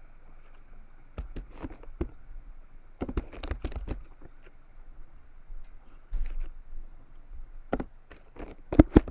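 Computer keyboard being typed on: short irregular runs of key clicks with pauses between them, the loudest clicks near the end.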